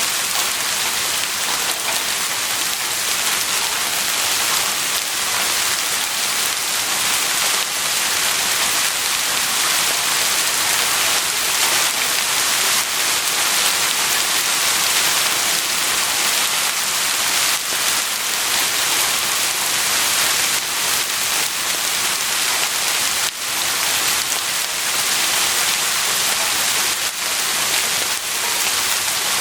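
Heavy rain falling steadily, a dense even hiss with individual drops pattering through it.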